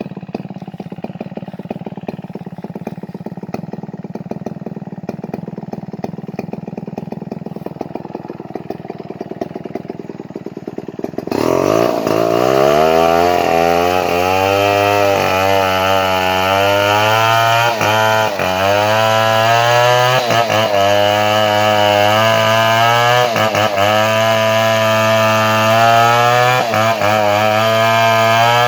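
Chainsaw engine idling steadily, then about eleven seconds in suddenly throttled up to high revs and held there, its pitch dipping and recovering several times.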